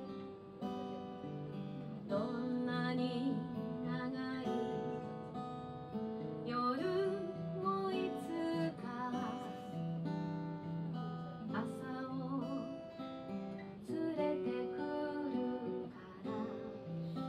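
Woman singing a song while strumming an acoustic guitar.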